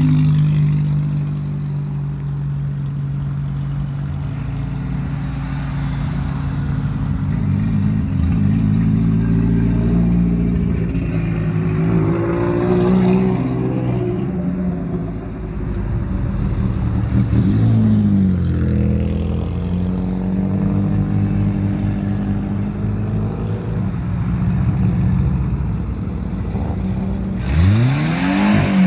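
Car engines running with a low, steady drone, revved up and down a few times, with a quick, sharp rev near the end.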